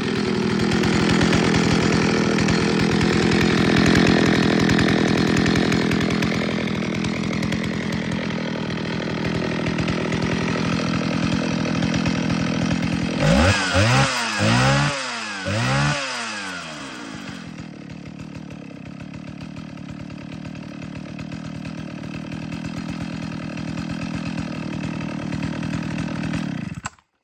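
Vintage Jonsered 621 two-stroke chainsaw running steadily after a start on fast idle. About halfway through it is revved up and down several times, then settles to a lower idle and is shut off suddenly near the end. The owner judges that it runs well but probably a little rich on the high-speed jet.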